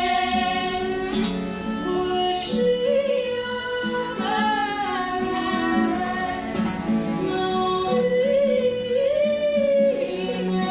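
A woman sings a song to her own strummed acoustic guitar, with a bowed cello playing alongside. It is a live duo of voice, guitar and cello, and she holds long notes that bend in pitch.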